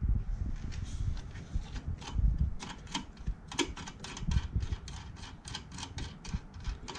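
Quick run of light clicks, about five a second and thickest in the second half, with dull handling knocks underneath, as a hand grips and turns the nut holding the diamond lap disc on the flat lap's arbor.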